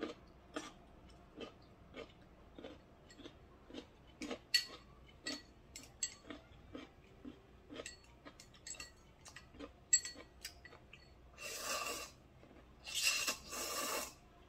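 A person eating instant ramen close to the microphone: a run of short, wet chewing and lip-smacking clicks, then two long slurps near the end as the bowl is raised to the mouth.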